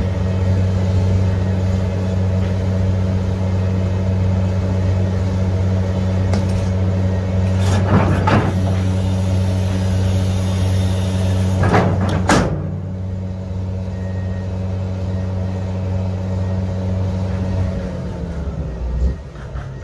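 Link-Belt 460X2 excavator's diesel engine running steadily, with two brief loud rushes of noise about eight and twelve seconds in. The low running tone drops away near the end.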